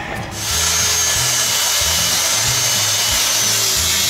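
Handheld circular saw starting about half a second in and running steadily with a high whine as it cuts through a rotten wooden board.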